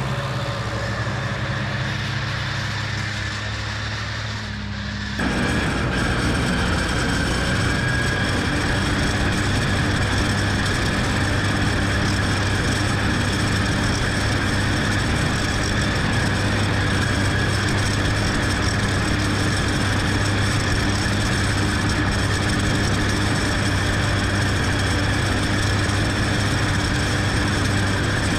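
Tractor engine running as it pulls a mower through standing grass. About five seconds in, the sound jumps suddenly to a much closer, louder and steady drone of engine and spinning mower, with a steady high whine running through it.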